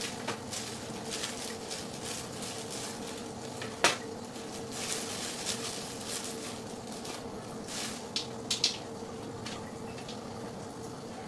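Plastic bag crinkling as garlic toast slices are taken out and laid on a metal pan. A sharp clack comes about four seconds in and a few lighter clicks about eight seconds in, over a steady faint hum.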